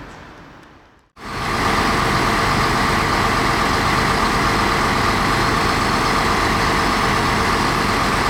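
A fire engine's diesel engine idling steadily and loudly. It starts suddenly about a second in, after a faint sound fades away.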